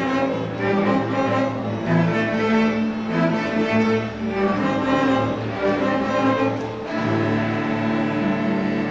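Youth string orchestra of violins and cellos playing a bowed piece, the notes moving in short phrases. About seven seconds in it settles onto a long held chord.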